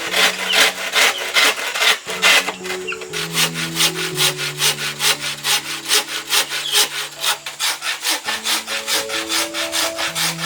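Hand saw cutting bamboo with quick, even back-and-forth strokes, about four a second.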